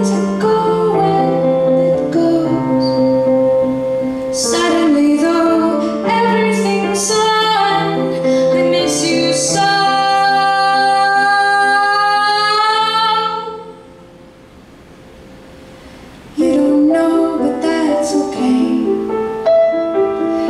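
A woman singing live while accompanying herself on a grand piano. About halfway through she holds one long note that fades into a short near-pause, then voice and piano come back in together.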